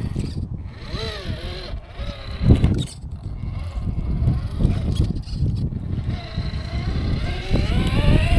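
Electric motor and geared drivetrain of an RC rock crawler whining. The pitch rises and falls with bursts of throttle, about a second in and again near the end, over low rumble.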